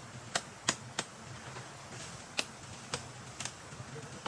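A series of sharp, short taps or knocks at an irregular pace: three in quick succession in the first second, then a few more spaced further apart.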